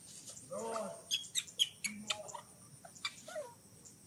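A baby monkey giving short whimpering cries, with a cluster of sharp high chirps and clicks about a second in.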